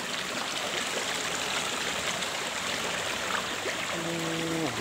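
Small mountain stream rushing and splashing over boulders in a steady wash of water. Near the end a person's voice briefly holds a note that falls away.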